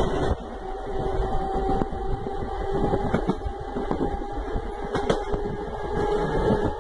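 Traction motors of a CPTM Budd electric train running under way, a steady hum with two held tones over a low rumble, with a few sharp clicks from the wheels and running gear.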